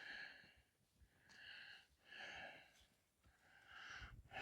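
Near silence, with a few faint, soft hisses roughly once a second.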